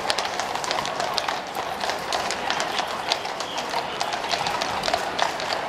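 Shod horses' hooves clip-clopping on a paved road, many overlapping irregular strikes from a mounted escort and carriage team passing.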